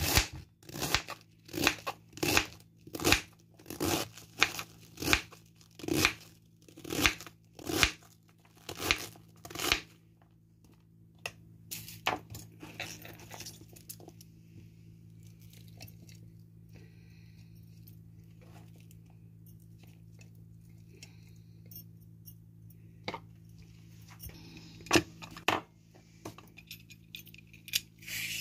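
A kitchen knife chops an onion on a plastic cutting board, with a crisp cut about once a second for the first ten seconds. Then comes softer scraping and handling of the chopped onion, with a few sharp knocks near the end.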